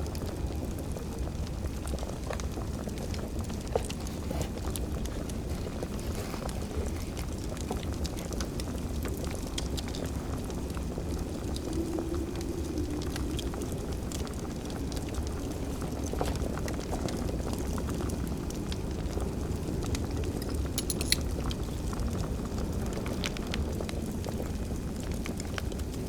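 Wood fire crackling over a steady low rumble, with scattered small pops and a sharper crack about 21 seconds in.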